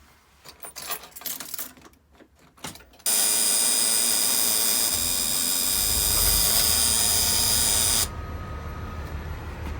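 Keys and controls clicking and rattling, then a 1999 Blue Bird LTC bus's diesel engine is cranked by its starter with a loud whine for about five seconds, catching partway through. The starter cuts off suddenly and the engine settles into a steady low idle with a thin steady tone over it.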